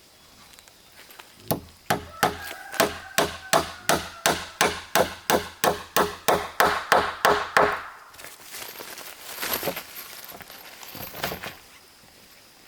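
Quick, steady blows of a tool on wood, about twenty strikes at roughly three a second, each with a slight ring. The blows give way to a few seconds of rough scraping noise.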